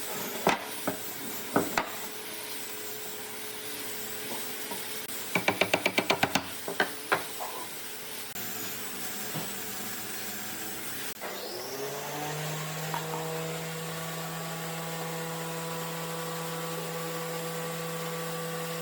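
Woodworking workshop sounds: scattered knocks on wood, with a quick run of about eight sharp knocks in the middle. About eleven seconds in, an electric woodworking machine's motor spins up, rising in pitch, then runs steadily.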